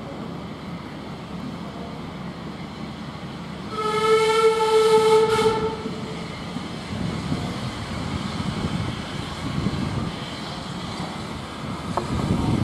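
A steam locomotive's whistle gives one steady blast of about two seconds, a few seconds in, over a low rumble of engines, as the locomotive approaches the platform.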